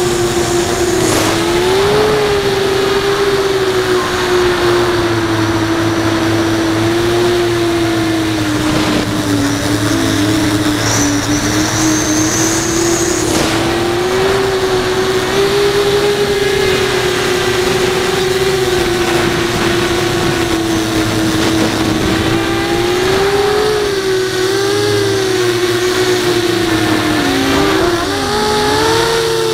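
Brotherhobby Returner R5 brushless motors and 5-inch HQProp propellers on an FPV quadcopter, whining steadily in flight as heard from the onboard camera. The pitch wavers with throttle changes, dipping sharply and rising again near the end.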